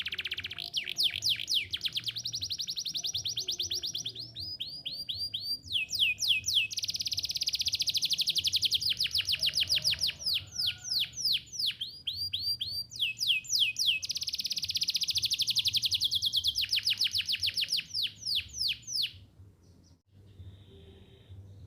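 Domestic canary singing long rolling trills, each a fast run of repeated downward-sweeping notes, in several phrases with short breaks. The song stops near the end.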